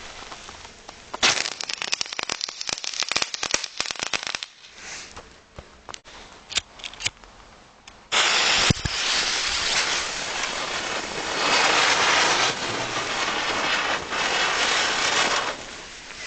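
Small youth-grade fireworks going off. First comes a burst of rapid crackling for about three seconds, then a few scattered pops. About eight seconds in, a loud steady hissing starts suddenly with a single bang just after it, and lasts about seven seconds.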